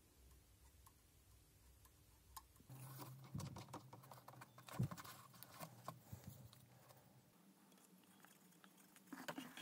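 Faint clicks and light knocks of metal parts being handled as a thin drive rod in a hand drill's chuck is fitted into a speedometer gauge's drive socket, with the loudest knock about five seconds in.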